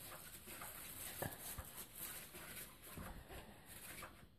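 Battery-powered cat toy running: its wand sweeps round under the fabric cover with a steady scratchy rustle and a few soft knocks, then cuts off suddenly at the end.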